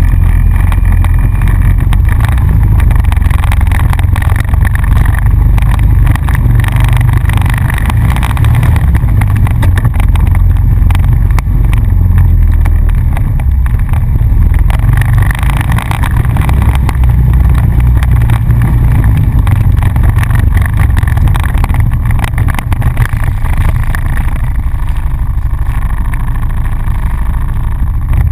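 ATV engine running steadily and loud while the quad is ridden along a dirt trail, heard from on board.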